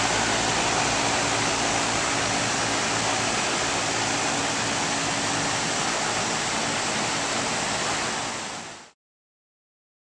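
American Standard 5-ton package heat pump running in cooling mode: a steady rush of air from the condenser fan with a low hum underneath, fading out about nine seconds in.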